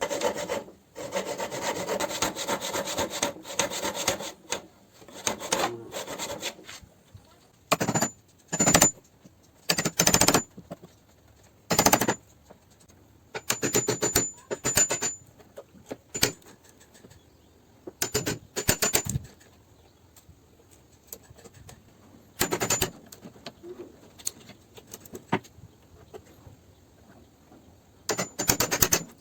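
Wood being worked with hand tools. A few seconds of rapid rasping strokes come first, then short, separate scraping strokes every second or few seconds.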